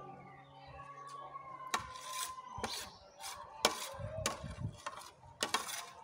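Metal spoons clinking and scraping against rice trays while two people eat: a series of sharp clinks spaced irregularly, about a second apart.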